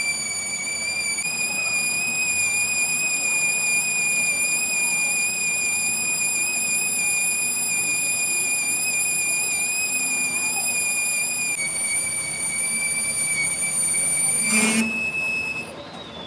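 A metal-cutting machine tool squealing steadily as it cuts, a single high-pitched whine with overtones. The pitch steps slightly about a second in and again near twelve seconds. Near the end there is a sharp click, a short higher tone, and then the whine stops.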